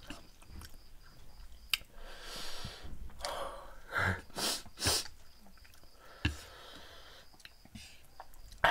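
Close-up eating sounds of spicy noodles: slurping and chewing with sharp sniffs and breaths through the nose, and a few short clicks. A cluster of loud sniffs or slurps comes about four to five seconds in, and a sudden loud breath right at the end.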